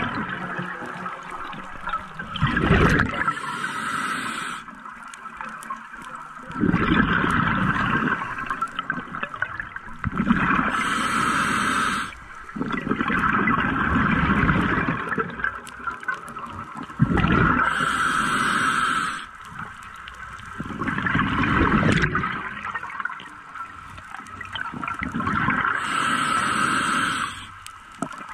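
Scuba diver breathing through a regulator underwater: about four slow breaths, each a hissing inhale and a long stretch of bubbling exhaled air.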